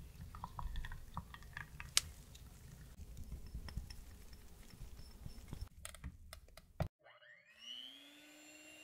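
Liquid chocolate ganache and then condensed milk pouring in a thin stream into a glass measuring jug, with small plops and drips. A few clicks follow near the six-second mark, and about seven seconds in an electric hand mixer starts up, its whine rising in pitch and then holding steady.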